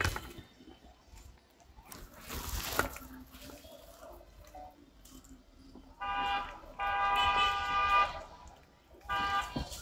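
A vehicle horn honking three times: a short toot, a longer one of about a second, then another short toot, each a steady unchanging pitch.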